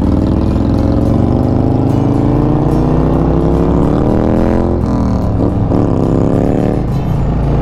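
Harley-Davidson Road Glide's V-twin engine accelerating away from a stop. Its pitch climbs steadily, drops at a gear change about five seconds in, then climbs again to a second shift near the end.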